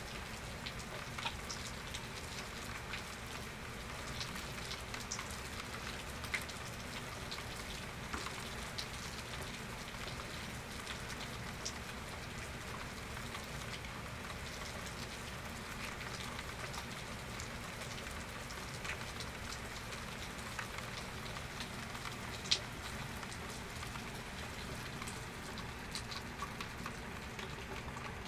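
Steady rain falling, with many individual drops striking close by as scattered clicks and one sharper drop hit about three-quarters of the way through.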